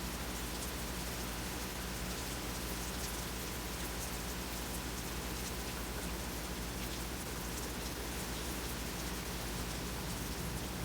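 Steady rain falling during a thunderstorm, an even hiss with fine ticks of drops striking.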